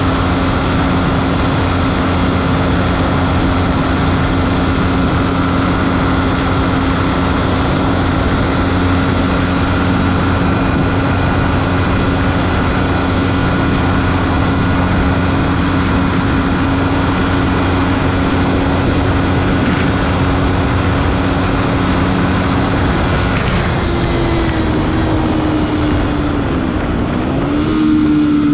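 Beta RR 125 LC enduro motorcycle engine running at steady revs under a constant rush of noise. About 23 seconds in, the engine note climbs, drops back, then climbs again as the throttle changes.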